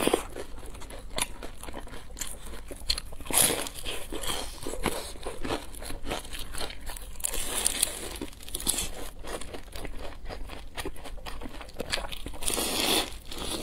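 Crispy deep-fried dumplings bitten and chewed close to the microphone: the fried crust crunches and crackles in repeated bites, with louder crunches at the start, around a quarter of the way in, midway and near the end.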